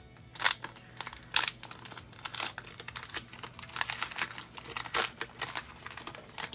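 Foil wrapper of a Pokémon booster pack crinkling and tearing as it is opened: a run of sharp, irregular crackles starting about half a second in.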